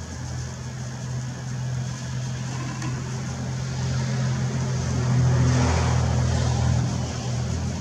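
A steady low engine hum that grows louder, with a rush of noise, about five to six seconds in.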